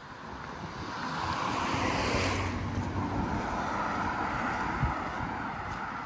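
Street traffic: a motor vehicle passes close by, its tyre and engine noise swelling to a peak about two seconds in and then easing into steady traffic noise.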